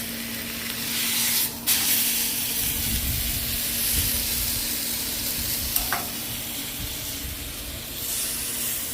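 Thick tomahawk steak searing in avocado oil on a griddle at about 600°, sizzling steadily. The sizzle briefly drops out under two seconds in, and there is a small click about six seconds in.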